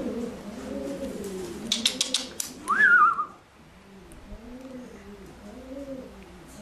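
Racing pigeons cooing, a run of low repeated coos. A few sharp clicks about two seconds in, then a short, loud wavering whistle around three seconds in.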